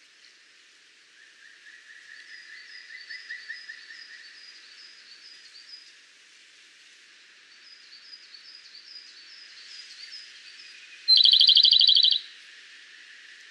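Japanese robin singing. Near the end comes a loud phrase, a single high introductory note that runs straight into a fast rattling trill about a second long. Before it, quieter trills and rows of repeated high chirps sound in the background.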